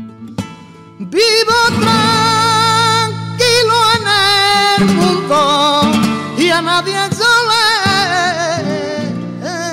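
Male flamenco singer singing a soleá de Triana in long, wavering, ornamented phrases, accompanied by flamenco guitar. The voice comes in about a second in, after a few guitar notes ring out, and breaks briefly about three seconds in before going on.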